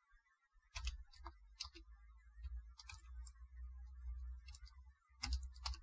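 Computer keyboard keys clicking irregularly as a short piece of code is typed, over a low rumble.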